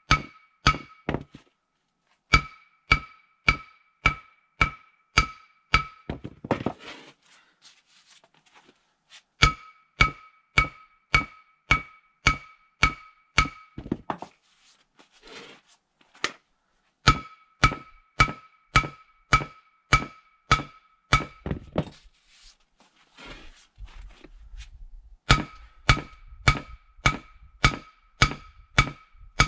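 Hammer striking the Stefa seal sleeve on a Nuffield tractor's rear axle shaft to stretch it loose. Sharp metal blows, about two a second in runs of six to eight, each ringing at the same clear pitch, with short pauses and some scraping between the runs.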